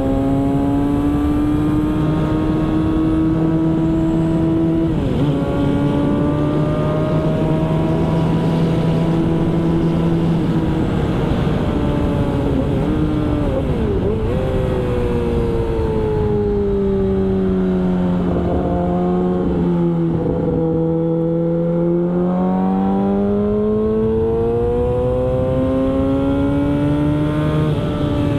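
Yamaha R6 sportbike's inline-four engine running at high revs on track, over a steady rush of wind noise. The engine pitch sags and climbs as the throttle is eased and opened again, dips briefly about halfway, drops lowest in the last third, then rises again near the end.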